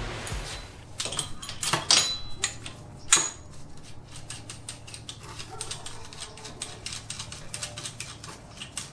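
Metal clanks at the end of a rear axle housing, then a run of light metallic clicking, several clicks a second, as a wheel-bearing puller adapter is worked into the axle tube to clamp onto the old bearing.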